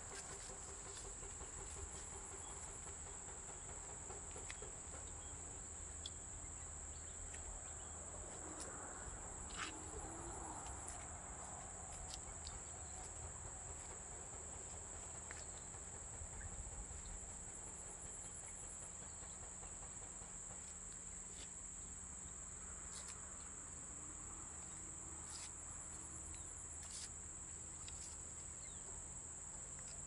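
Insects droning steadily in a continuous high-pitched whine, with a faster pulsing trill joining above it now and then, and a few scattered light knocks.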